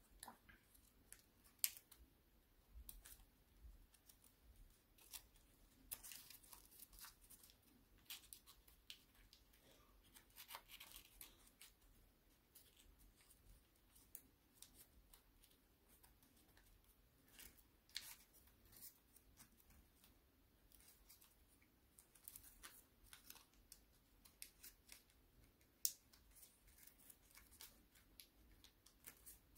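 Faint crinkling and crackling of origami paper being folded and creased by hand, in scattered small crackles with one sharper snap near the end.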